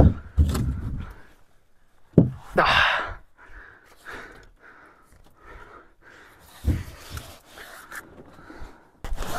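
A few sharp knocks and thumps, with short rustling swishes between them.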